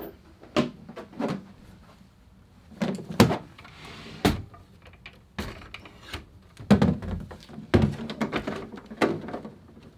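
Scattered knocks, thuds and clicks of a typewriter carrying case being handled, the sharpest knock about four seconds in.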